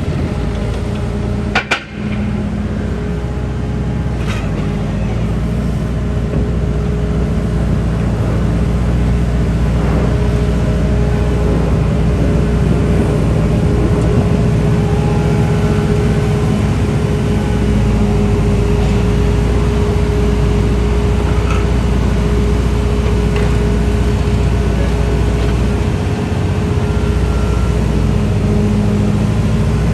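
Diesel engine of a Liebherr A934C wheeled excavator running at a steady speed, with a couple of sharp clicks about two seconds in.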